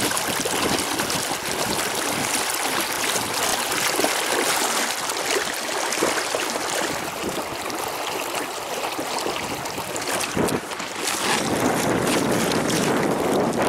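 Water rushing and splashing along an inflatable pontoon under way, churned by a Haswing Osapian 36 lb electric trolling motor, with wind on the microphone. The wind noise grows heavier from about eleven seconds in.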